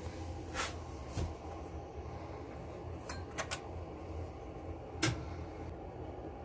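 A handful of short, light clicks and knocks of hand tools being handled on a metalworking bench, the loudest about five seconds in, over a steady low hum.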